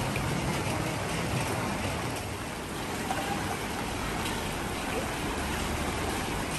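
Steady rush and sloshing of knee-deep floodwater in a flooded street, stirred by people wading and a car driving through it.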